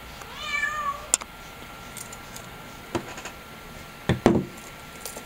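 A cat meows once near the start, with a few small clicks of handling after it. About four seconds in comes the loudest sound, a couple of knocks as the Canon TX film camera is set down on a wooden table.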